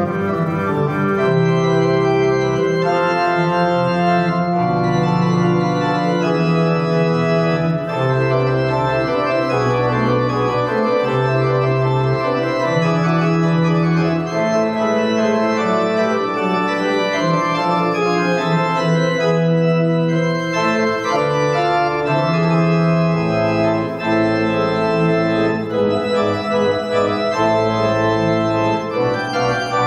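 Slow solo keyboard music with an organ sound: long held chords that change every second or two.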